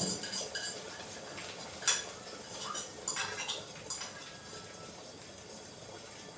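A few light metallic clinks and knocks of kitchen utensils against a frying pan, the sharpest about two seconds in and a pair about a second later.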